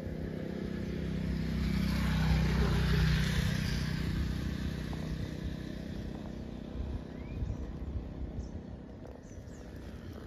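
A motor vehicle passing: engine hum and road noise swell to their loudest two to three seconds in, then slowly fade away.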